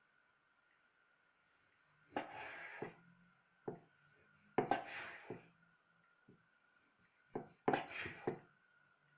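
A chef's knife slicing through raw lamb testicles on a wooden cutting board. There are three slow cuts about two and a half seconds apart, each a short slicing rasp that ends in a knock of the blade on the board, with a light tap or two in between.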